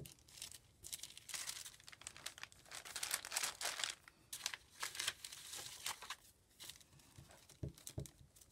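Paper scraps being handled and pressed onto a notebook page: crinkling and rustling, densest in the middle, then a few soft taps near the end.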